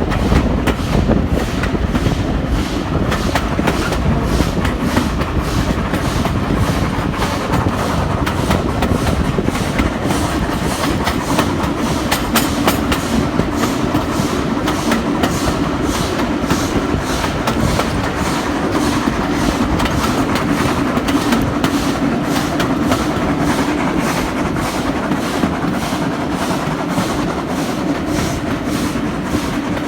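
Train running along the track, with a steady, even beat of about two sharp clicks a second over a continuous rumble.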